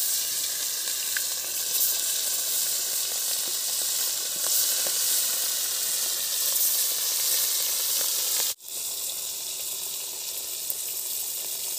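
Khayra fish sizzling steadily as they fry in hot mustard oil in an iron wok, more fish being slipped into the oil. The sizzle cuts out for an instant a little past two-thirds through, then carries on slightly quieter.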